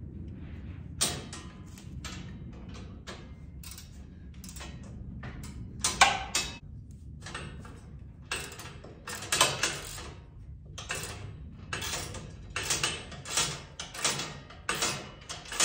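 Hand ratchet wrench clicking in short runs as a bolt on the tractor's grill guard mount is tightened. The strokes come irregularly at first and settle to a steady rhythm of about two a second in the second half.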